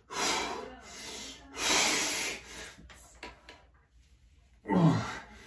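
A man breathing hard through bent-over rows with a resistance-band bar: loud, forceful breaths in and out in the first couple of seconds, then a short grunt falling in pitch near the end.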